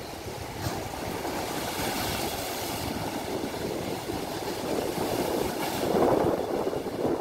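Fast, churning floodwater rushing and breaking over rubble, with a louder surge about six seconds in and wind buffeting the microphone.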